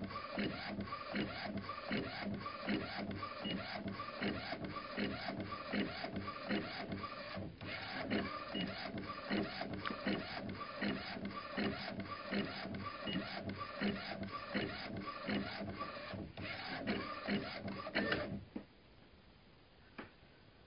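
Golf-ball printing machine running, a steady repeating mechanical clatter of a few strokes a second, which stops abruptly about eighteen seconds in.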